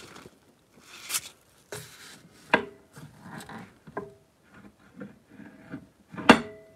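Wooden axe handle being handled and rubbed with gloved hands on a workbench, with three sharp wooden knocks, the loudest near the end.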